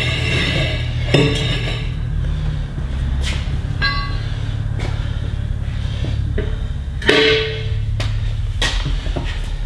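Background music with a steady low bass, over several sharp metal clanks from a tire bar as a truck tire is levered onto its rim. One clank about four seconds in rings on briefly.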